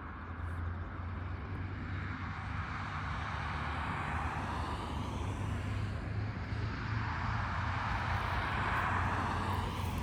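Diesel locomotives running, with a steady low engine drone and a broad rushing noise that swells near the end.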